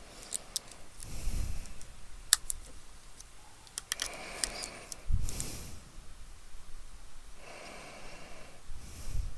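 Light clicks and taps of small parts being handled at a workbench, with a few breaths and low puffs against the microphone.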